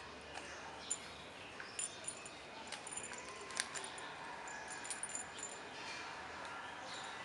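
Puppy gnawing on a sandal's rubber strap: scattered soft clicks and scrapes of teeth on rubber, with brief light metallic jingles from its collar.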